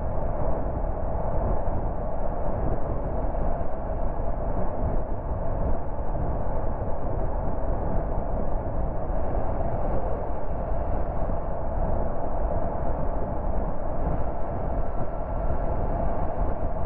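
Steady road noise of a car cruising at motorway speed: tyre roar and wind, low and even, with nothing standing out.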